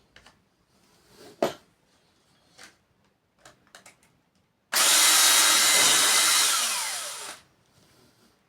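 A few light handling clicks, then an electric drill with a 5 mm bit runs in one burst of about three seconds, its motor winding down in pitch as the trigger is released.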